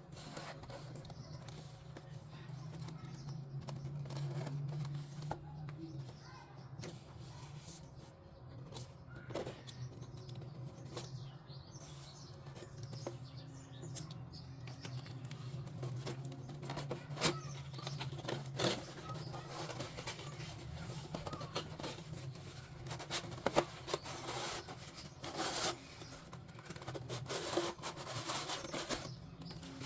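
Plastic toy kitchen items and their packaging being handled: scattered light taps, clicks and rustles over a low steady hum, growing busier in the last third.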